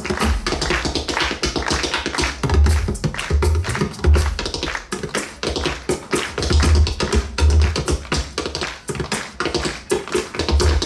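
Bodhrán played fast with a tipper: a quick run of sharp taps with deep, booming low strokes every second or so.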